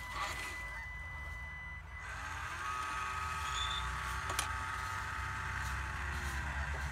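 Western Star RC dump truck lowering its bed: a small electric lift motor starts about two seconds in with a rising whine, runs steadily, and winds down near the end. Before it, a steady high electronic tone sounds for about two seconds.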